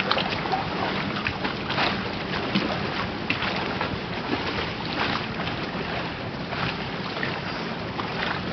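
Lake water splashing and sloshing in short irregular bursts, with wind buffeting the microphone and a faint steady low hum underneath.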